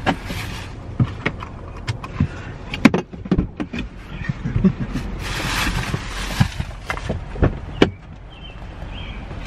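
Handling noise inside a car cabin: many sharp clicks and knocks and a rustling hiss, loudest about five to six seconds in, over a steady low hum.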